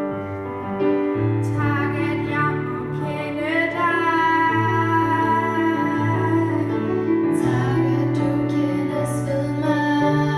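A girl singing a hymn into a microphone over an instrumental accompaniment of held chords. The voice comes in about a second and a half in and holds long notes.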